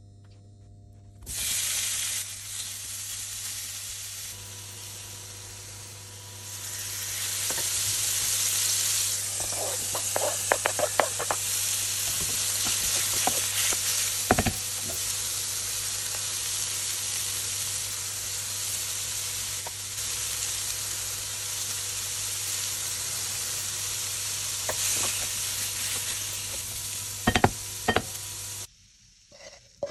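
Jackfruit pieces and diced onion sizzling in a hot nonstick frying pan as they fry, stirred with a spatula that clicks and scrapes against the pan now and then. The sizzling starts about a second in, grows louder a few seconds later, and cuts off shortly before the end.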